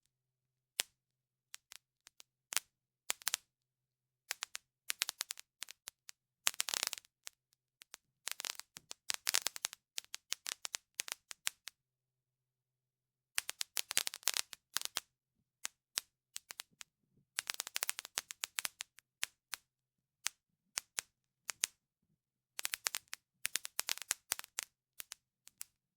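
Cracking sound effect: a series of sharp cracks and snaps, some single and spaced out, others packed into dense crackling runs, with a short silent pause about halfway through.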